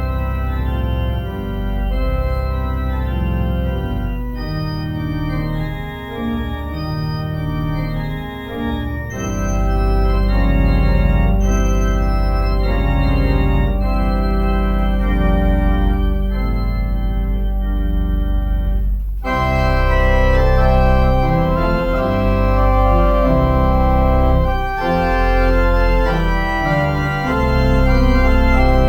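Organ playing a prelude: sustained chords over a deep pedal bass, changing every second or two, the sound turning brighter and fuller about two-thirds of the way through.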